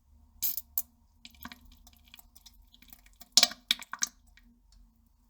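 A person defecating on a toilet: a series of short wet squishes and drips, the loudest cluster about three and a half seconds in.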